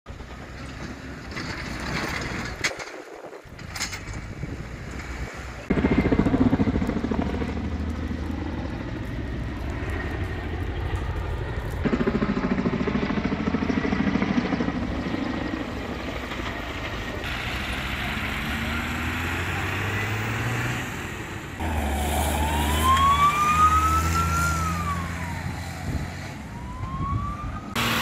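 Outdoor fire-scene sound that changes abruptly every few seconds, with vehicle engines running, and from about three-quarters of the way in an emergency-vehicle siren wailing, rising and then falling.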